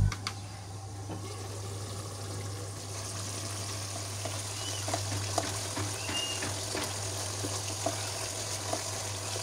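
Chicken pieces simmering in spiced oil and juices in a pot: a soft, even bubbling and sizzling with scattered small pops. A steady low hum runs underneath.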